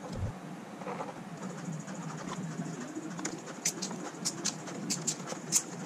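Irregular light ticks and rustles of paper being handled and set down on mat board, starting about halfway through, over a steady low hum.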